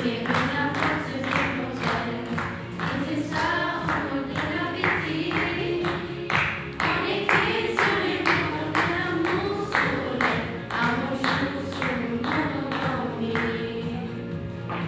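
A group of children singing a song together over a steady, sharp beat of about three strikes a second; the beat and singing thin out near the end.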